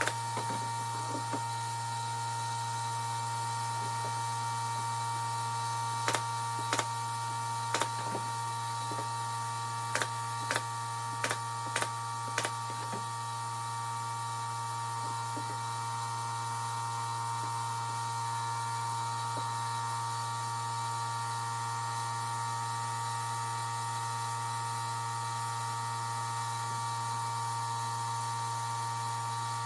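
Brad nailer firing about eight sharp shots into cedar boards, spaced irregularly over about six seconds in the first half, over a steady hum.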